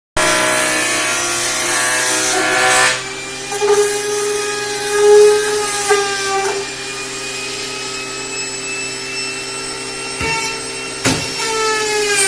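Electric woodworking power tool running on wood with a steady motor whine, its pitch shifting a few times as it works; about 11 seconds in there is a click and the motor begins to wind down, falling in pitch.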